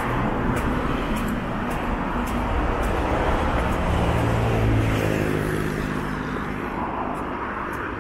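Road traffic: a motor vehicle passes close by. Its sound swells to a peak about halfway through, then fades as its engine pitch drops.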